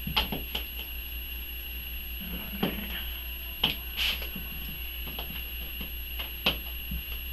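Scattered light taps and clicks, irregularly spaced, as hands press and patch soft clay on a tabletop, over a steady hum.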